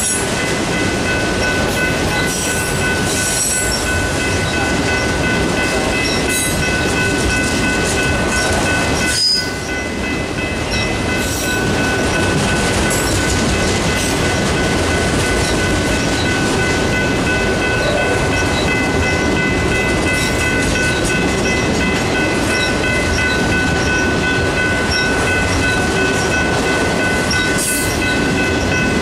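Autorack freight cars rolling steadily past, their wheels rumbling and clattering on the rails, with steady high-pitched ringing tones running over the top.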